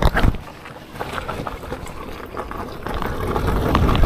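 Wind buffeting the microphone as a KingSong S22 Pro electric unicycle is ridden off-road, with scattered knocks and clicks as it goes over rough ground; the noise grows louder toward the end.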